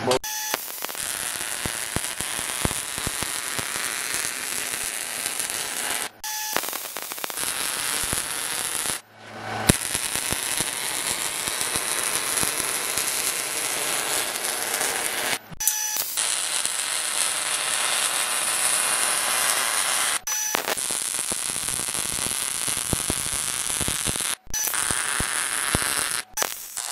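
Wire-feed welding arc running beads on sheet steel: a steady frying crackle that stops and restarts about six times as each weld is finished and the next one struck.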